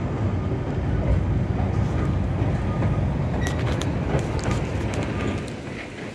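Kurobe Gorge Railway trolley train running along its narrow-gauge track, heard from on board as a steady low rumble of wheels and running gear. A run of sharp clicks and rattles from the rails comes about halfway through.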